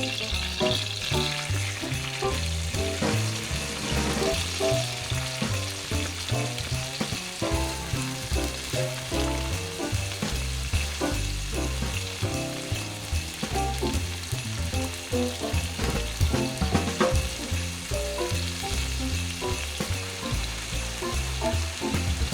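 Steak sizzling and frying in a hot pan, over background music with a steady bass line.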